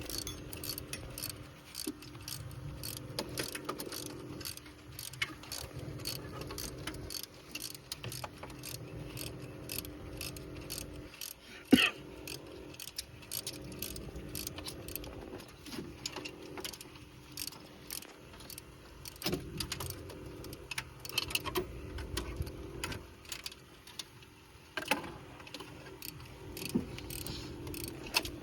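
Repeated small metallic clicks and clinks of hand tools working bolts, as from a socket ratchet, over a steady low hum. A sharper clink comes about twelve seconds in.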